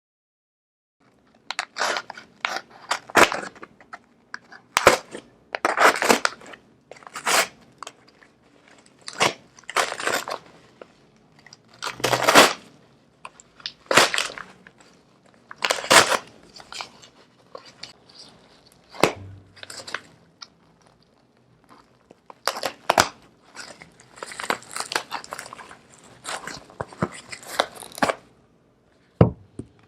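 Packaging of a Xiaomi Mi wireless mouse being handled and opened: irregular crinkling, crunching and scraping in bursts of a second or so, with short pauses between them.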